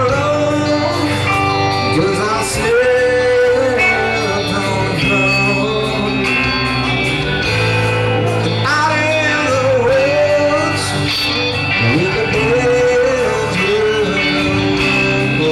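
Rock band playing live: electric guitars and drums under a man singing long, wavering lines.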